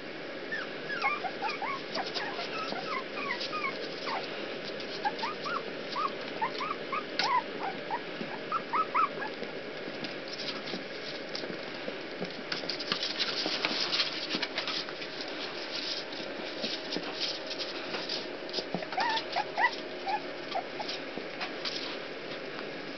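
Young Rat Terrier puppies whimpering in short, high squeaky cries, many in quick succession over the first nine seconds and again about twenty seconds in. In between come scratching and rustling as the puppies scramble over towels and the plastic pool.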